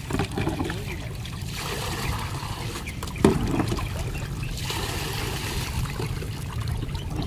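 Water trickling and splashing as it drains out through the holes of a plastic basket into the water below, with one short louder noise a little over three seconds in.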